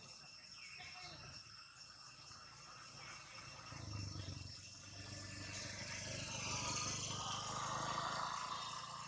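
Insects, crickets or cicadas, trill steadily at a high pitch in the trees. A rushing noise swells in the second half and becomes the loudest sound.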